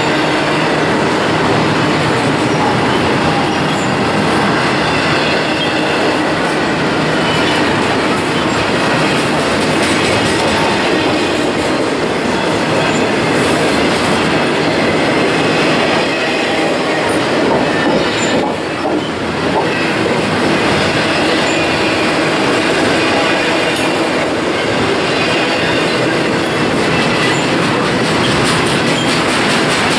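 Freight train of double-stack container well cars rolling past, making a steady noise of steel wheels on rail, with thin high tones of wheel squeal running through it.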